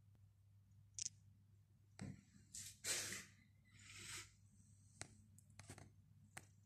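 Near silence: faint room tone with a low steady hum, a few soft scattered clicks and two brief rustles in the middle.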